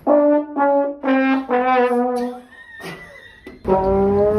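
Trombone played as a comic sound effect: four short notes, the last sliding down, then after a pause a long note that slides upward. A faint high steady tone sounds during the pause.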